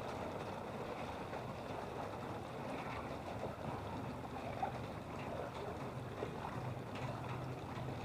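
Steady water noise in a flooded street, with a faint low hum underneath.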